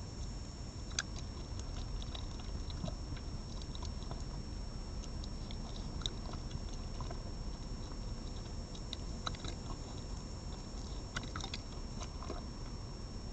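Red fox chewing and biting meat from a plate: irregular small clicks and snaps, with a few quick clusters, over a steady background hiss and a thin high whine.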